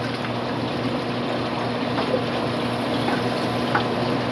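Aquarium fish-room filtration running: a steady rush of flowing water with a low pump hum underneath, and a couple of small splashes or clinks.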